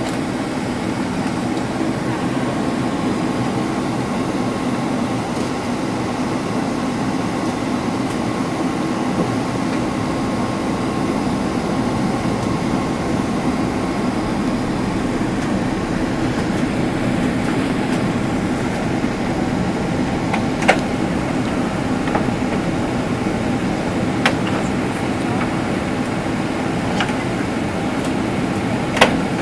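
Steady cabin drone of a Boeing 767-300 airliner on descent, heard inside the cabin at a window seat beside the engine: an even rush of engine and airflow noise with a faint steady whine. A few short clicks come in the second half.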